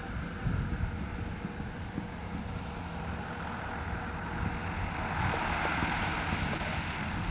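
Single-engine agricultural airplane flying low on its landing approach, its engine and propeller drone growing louder over the last couple of seconds as it nears, with wind buffeting the microphone.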